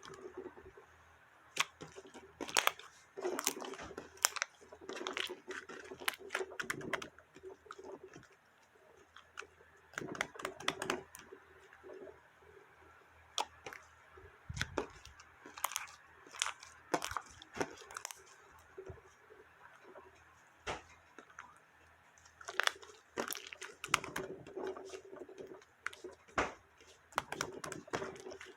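Slime being squished, pressed and stretched by hand, giving off irregular crackling pops and clicks in clusters, with quieter stretches between them.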